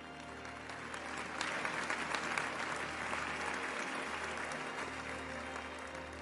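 Audience applauding, swelling about a second in and slowly easing off, over soft background music.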